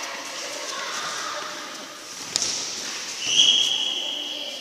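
A referee's whistle blown in one long, steady blast near the end, the loudest sound here. It is preceded about a second earlier by a sharp thud of the futsal ball being kicked on the court.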